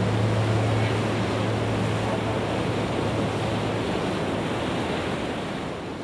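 Steady rushing noise, like wind, fading slowly toward the end, with a low steady hum underneath that stops about four seconds in.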